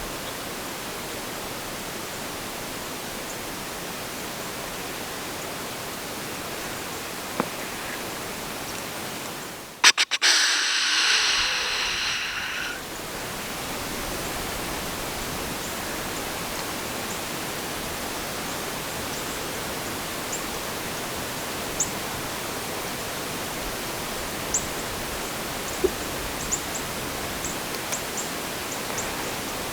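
A steady hiss. About ten seconds in it is broken by a couple of sharp clicks and a louder rush of hiss that lasts about three seconds, and a few faint ticks come near the end.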